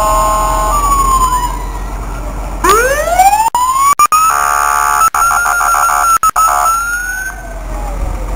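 Fire engine siren sounding as the truck passes: a tone falling away early on, then a steep rising wail about two and a half seconds in. A horn blasts over it for a couple of seconds, broken into several short blasts, before the siren rises and falls again near the end. The recording cuts out for split seconds a few times.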